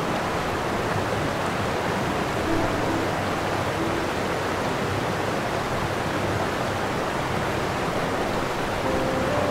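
Steady rushing of open sea water, even and unbroken, with faint background music tones underneath.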